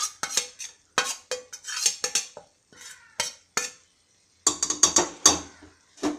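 Steel spoon scraping and clinking against a steel plate and the inside of a pressure cooker as ground coconut paste is scooped into cooked green gram. A run of quick scrapes and taps, with a brief pause a little past halfway.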